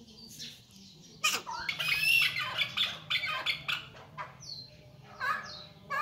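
Masqati chukar partridges calling with harsh, rapid, chattering squawks, loudest from about one to four seconds in. Short falling high notes and a few more calls follow near the end.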